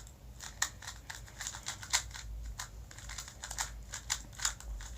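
A magnetic 2x2 speedcube being turned quickly by hand: a rapid, irregular run of sharp plastic clicks and clacks as the layers turn and snap into place.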